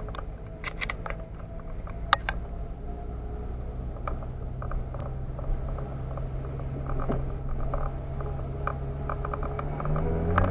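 Car engine running at low, steady revs, heard from inside the cabin, with scattered sharp clicks and rattles. Near the end the engine note starts to rise as the car accelerates.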